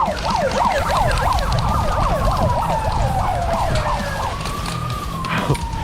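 Siren sounding in a fast yelp that slows after about two seconds into long rising and falling wails, used as the start signal for an airsoft game.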